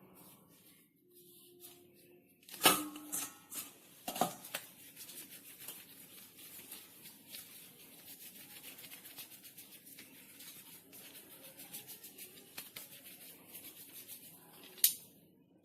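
Hands working maida dough, pinching and tearing it into small pieces: soft, rapid rustling and crackling, with a few sharp knocks, two of them a couple of seconds in and one near the end.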